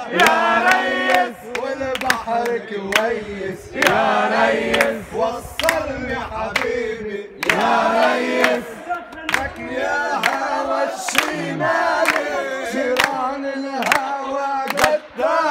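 A group of people singing an Arabic folk song together, with hand claps along with it.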